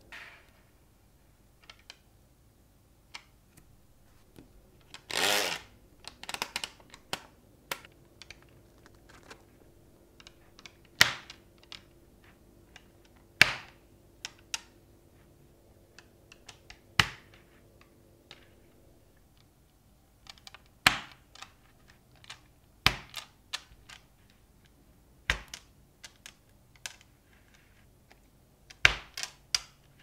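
Small magnetic balls clicking and snapping together as strips and grids of them are split apart and set down on a hard table: sharp separate clacks every second or few, with one longer, louder rattling clatter about five seconds in.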